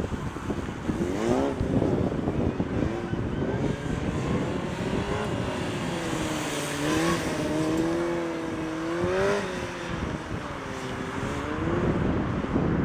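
Motorcycle engine revving up and down over and over, its pitch rising and falling every second or two as the bike accelerates and slows through tight turns.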